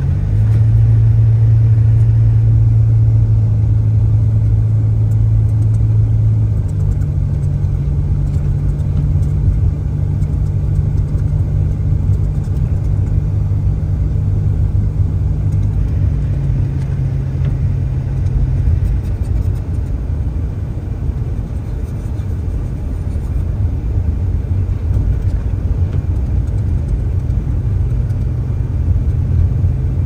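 Car engine and tyre noise heard from inside the cabin while driving on a snow-covered road: a steady low drone that steps up in pitch about seven seconds in and eases down slightly about halfway through.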